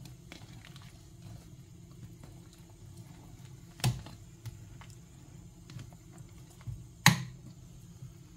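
Metal ladle stirring soup in a stainless steel pot, with faint taps and two sharp clinks against the pot, about four and seven seconds in, over a low steady hum.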